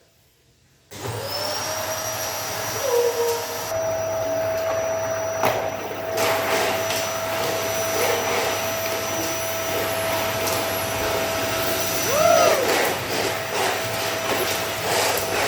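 A small electric motor whirring steadily, switching on abruptly about a second in after near silence.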